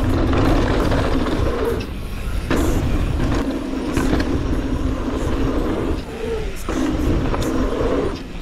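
Mountain bike riding fast downhill on a dirt trail: a steady rush of wind and rolling rattle, with a couple of sharp knocks from bumps about two and a half and four seconds in.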